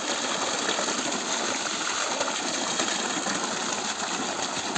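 Water gushing steadily from a pump's outlet pipe, splashing into plastic tubs.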